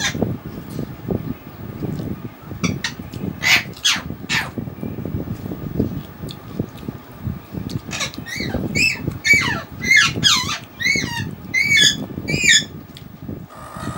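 A bird calls repeatedly in the second half: a quick run of about eight short, high squawks, each sweeping down in pitch, with a couple of single calls earlier. Underneath, close-up eating sounds of chewing and of rice and fish being mixed by hand.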